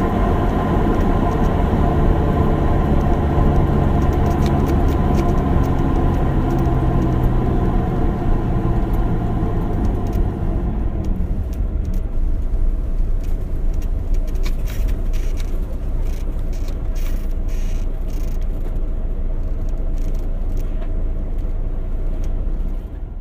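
Inside an old bus on a poorly paved road: the engine runs with a strong humming note that drops away about halfway through, leaving a duller road rumble. Seats squeak and fittings rattle, with many sharp clicks in the second half.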